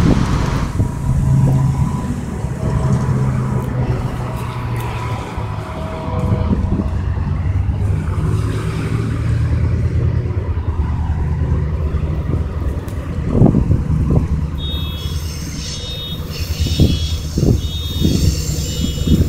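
Road traffic: cars and trucks passing on a highway with a steady engine hum, and a few sharp knocks past the halfway point. About three-quarters through, a high beeping starts, pulsing on and off roughly twice a second.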